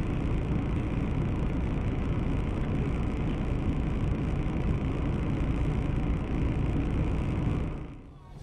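Steady rumble of a car driving, tyre and engine noise recorded by a dashcam, with no impact. It cuts off sharply near the end.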